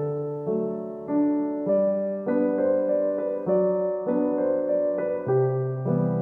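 Background piano music: a gentle, slow solo piano piece with a new note or chord about every half second.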